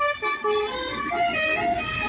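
Telolet bus horn playing a tune in short stepped notes, over a low engine rumble.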